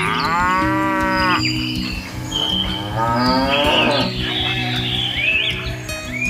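A cow mooing: two long moos, one at the start and another about three seconds in, over background music with sustained notes.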